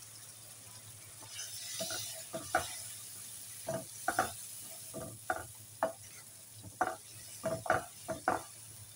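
Wooden spoon stirring potato chunks through a tomato-and-spice masala in a non-stick wok, a string of short scrapes against the pan from about two seconds in, with the masala sizzling underneath.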